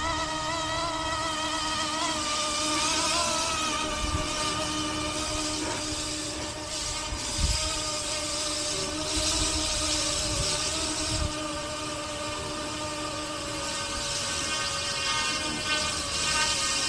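Electric RC helicopter's motor and rotors whining steadily, the pitch wavering slightly, with wind gusts buffeting the microphone.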